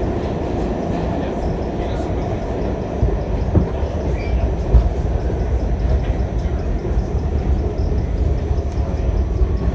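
Inside an R46 subway car running at speed through the tunnel: a steady rumble and rattle of wheels on rail that grows heavier about three seconds in, with a couple of sharper knocks soon after.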